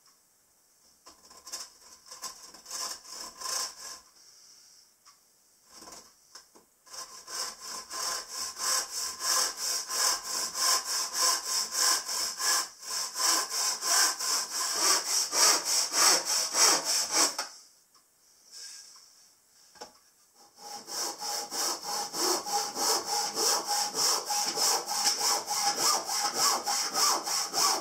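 Hand saw cutting planed pine timber in steady back-and-forth strokes. The strokes start light, then run on heavily, break off for about three seconds, and start again on a second cut.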